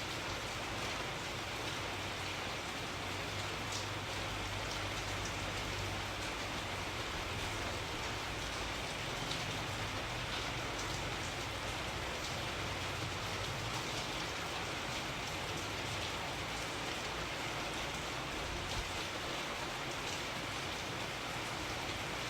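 Steady rain falling, an even hiss with scattered drop ticks and a low rumble underneath.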